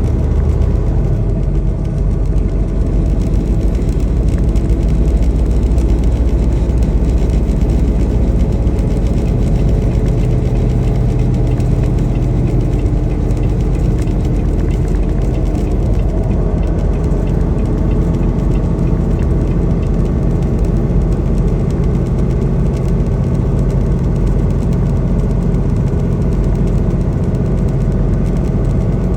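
Semi truck driving on the highway: a steady, low engine drone with road noise.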